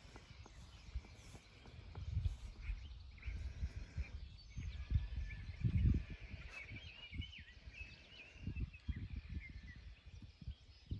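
Birds chirping, with short calls that rise and fall in pitch, over an irregular low rumble of wind on the microphone.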